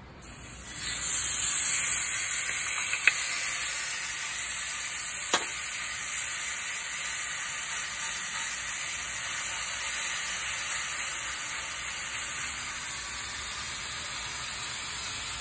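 Marinated pork chop sizzling on a hot indoor electric grill plate. The sizzle starts about a second in as the chop goes down and then runs steadily, easing slightly, with two light clicks early on.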